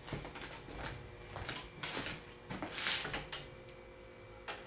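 Handling noise on a manual screen-printing press: a few light knocks and clicks of the metal screen frame and clamps being adjusted, with a brief scraping rustle about three seconds in, over a faint steady hum.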